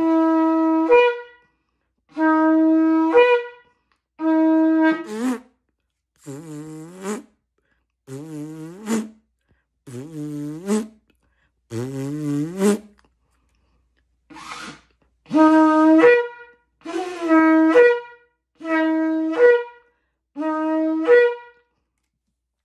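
Shofar blown in about a dozen short blasts, each about a second long: a steady note that jumps up to a higher note at the end of each blast. A run of four blasts in the middle comes out lower and wavering in pitch.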